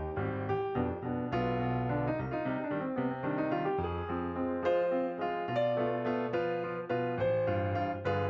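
Background music: a piano playing a lively melody over bass notes.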